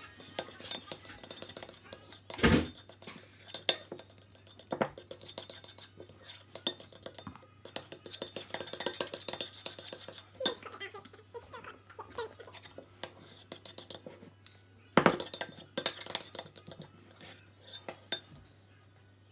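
A spoon stirring glue and baby oil in a bowl, scraping and clinking against the bowl's sides, with a few louder knocks of the spoon on the bowl.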